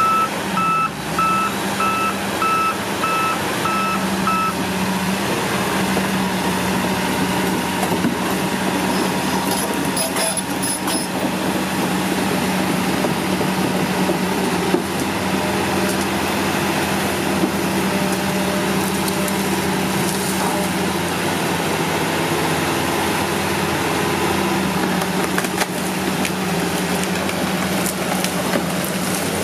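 Hitachi ZX200 hydraulic excavator's travel alarm beeping evenly for the first four or so seconds, then stopping, over the diesel engine running steadily throughout.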